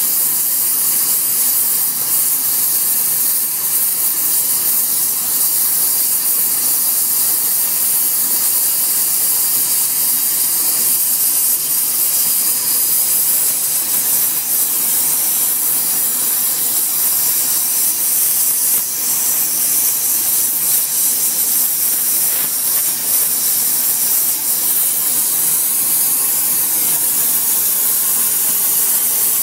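Gas brazing torch flame hissing steadily as it heats a steel hammer edge to braze on TufCote alloy cord.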